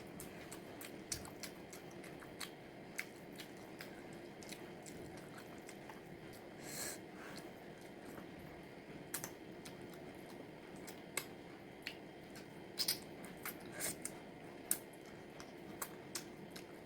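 Close-miked eating of chicken: scattered sharp clicks and short crunches, irregular and a few each second, over a steady low hum.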